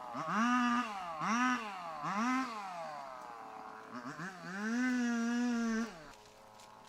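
Motorbike engine revved in three quick throttle blips, each climbing fast and sinking back slowly. It is then held at higher revs for about a second and a half before dropping back to idle.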